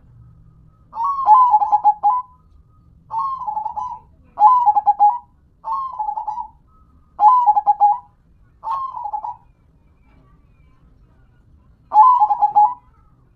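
Zebra dove (perkutut) cooing its song: seven short phrases of quick, rhythmic coo notes, each under a second, repeated about every second and a half, with a pause of about two seconds before the last phrase.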